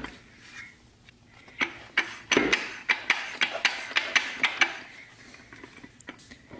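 TH400 direct clutch drum being twisted back and forth as it is worked down into the transmission case, giving irregular light metal-on-metal clicks and clinks with some rubbing between them as its clutch plates and splines find their engagement before it seats.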